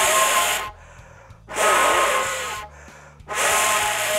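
A person blowing hard through a corrugated plastic sound hose into a plastic bag to fill it with air: three long blows of about a second each, with short quiet pauses between them for breath.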